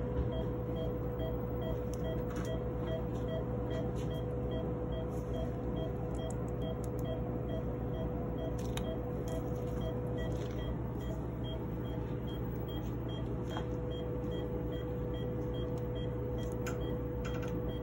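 Rapid, regular beeping of a veterinary anesthesia monitor, a couple of beeps a second, over a steady electronic tone and low hum. Faint scattered clicks of metal surgical instruments.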